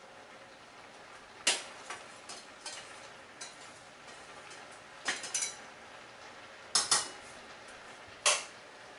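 Pots, pans and utensils clinking and clattering on a stovetop: a string of sharp clinks, the loudest about a second and a half in, around five seconds, a close pair near seven seconds, and one just past eight.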